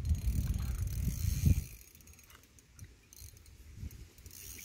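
Spinning reel's drag buzzing as a big peacock bass pulls line off against it, with a low rumble over the first second and a half.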